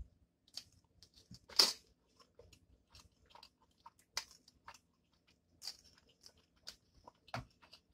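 A person eating saucy ramen noodles close to the microphone: wet chewing and mouth smacks with scattered small clicks, and a few short slurps of noodles, the loudest about one and a half seconds in.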